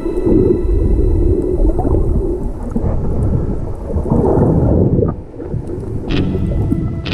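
Low, muffled underwater rumble and water noise picked up by a camera in a waterproof housing as a freediver swims over a shipwreck. About five and a half seconds in, music with steady tones and sharp hits comes back in.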